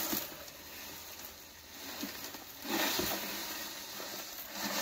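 Sand with small stones pouring from a plastic bucket into an ATV spreader's plastic hopper: a steady pour that grows louder about three seconds in and again near the end.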